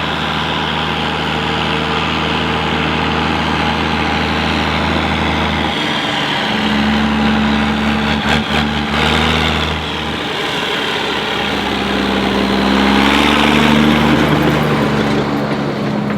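Heavy diesel farm machinery engine running steadily, its speed picking up a little about six seconds in and again near thirteen seconds.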